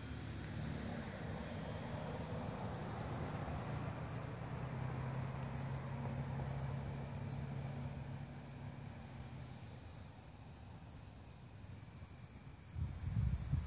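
Crickets chirping in a steady high-pitched rhythm, about three to four chirps a second, over a low steady rumble. A few low bumps near the end.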